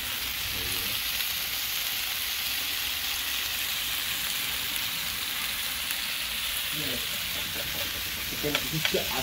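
Jerk-sauced chicken pieces sizzling on a hot flat metal griddle: a steady frying hiss.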